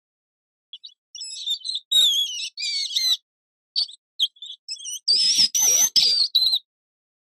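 A small rodent squeaking: a run of short, high, wavering squeaks and chirps in quick bouts, the longest and loudest stretch about five seconds in, with some scratchy noise under it.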